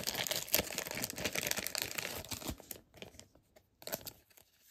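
Clear plastic top loader crinkling and rustling in the hands as a trading card is put into it: a dense crackle for the first two and a half seconds, then scattered lighter crackles.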